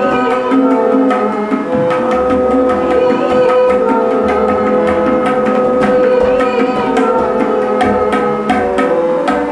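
Music: quick, steady drum strokes over held, sustained tones.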